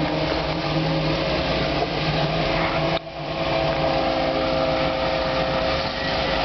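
Off-road vehicle's engine running steadily under load, with a brief sudden break about three seconds in.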